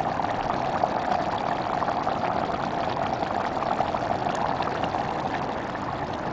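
Thick red curry bubbling and sizzling in a hot black stone pot, a steady dense crackle of tiny pops.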